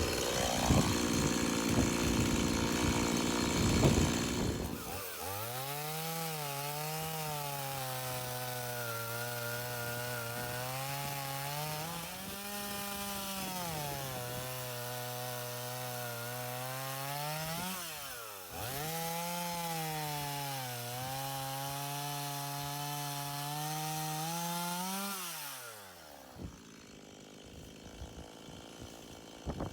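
Two-stroke chainsaw engine running and being revved up and down, its pitch rising and falling several times, then winding down and stopping near the end. The first few seconds are louder and rougher.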